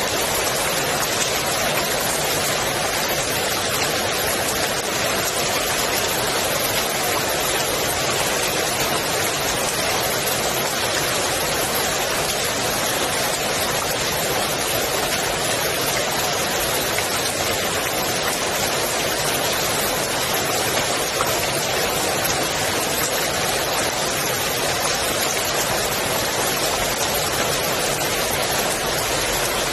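Rain falling steadily on the water of a swimming pool: a dense, even hiss of drops with no change in strength.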